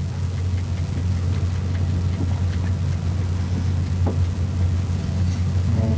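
A steady low hum, like electrical hum on a sound system, with a few faint ticks.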